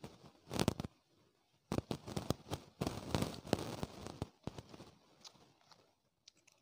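Plastic chocolate and biscuit wrappers crinkling and crackling as packets are handled and picked up. It comes in irregular bursts, densest from about two to four seconds in.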